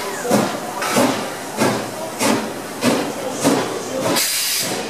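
NSW C36 class steam locomotive 3642 pulling away slowly, its exhaust chuffing in steady beats about one and a half a second, with steam hissing around the cylinders. A longer hiss of steam comes near the end.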